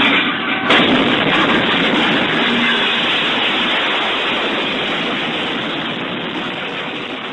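A train collision heard from the train's cab: a sudden loud crash about a second in, followed by a dense rushing noise that slowly fades.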